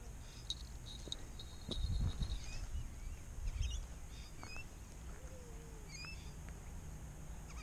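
Lakeside ambience with scattered short bird chirps and clicks. Low rumbling bumps on the microphone are loudest about two seconds in and again around three and a half seconds.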